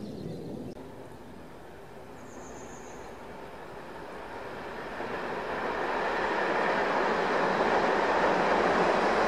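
Diesel-hauled passenger train approaching out of sight, its engine and wheels on the rails a steady noise that grows louder from about four seconds in.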